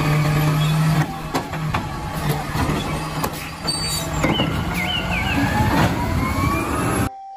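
Automated side-loader garbage truck working at the curb: the engine runs while the hydraulic arm handles a wheeled trash cart, with irregular clanks and knocks. In the second half a whine rises in pitch as the truck pulls away.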